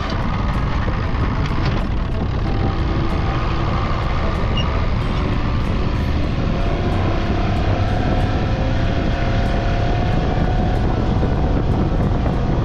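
A 90-horsepower Yamaha outboard motor runs under throttle as the boat gets under way, over the rush of water from the wake. From about halfway through, the engine's pitch climbs slightly as it speeds up.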